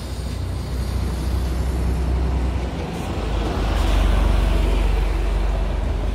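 Heavy road traffic: a deep, steady rumble of passing vehicles, with a heavy vehicle coming through that swells to its loudest about four seconds in and eases off near the end.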